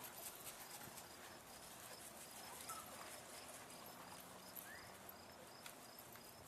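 Near silence with a cricket chirping faintly at an even pace, about two chirps a second, and a few soft scattered ticks.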